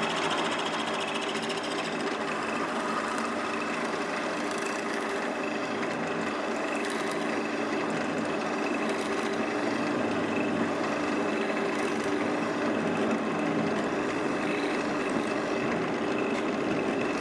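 Drill press motor running steadily as its hollow-chisel square mortising bit is fed into wood, the auger turning inside the square chisel and lifting the chips up through it.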